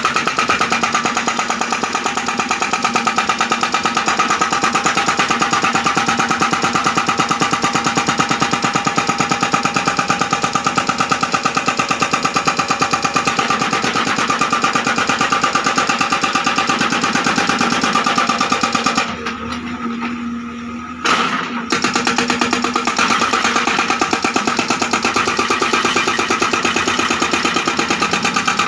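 Hydraulic breaker on a backhoe loader hammering with rapid, even blows, with the engine running under it; the hammering stops for about two seconds roughly two-thirds of the way through, then starts again.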